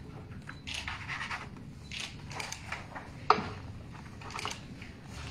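Pens scratching on paper and sheets rustling as agreement documents are signed at a table. There is one sharp tap a little over three seconds in.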